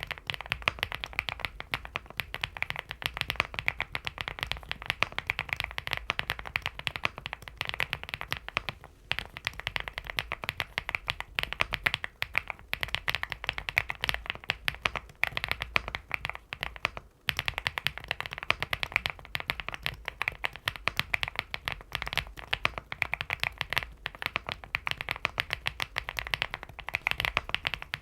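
Fast, continuous typing on a LEOBOG HI75 mechanical keyboard fitted with factory-lubed Owlab London Fog linear switches: a dense run of keystroke clacks that stops briefly a few times.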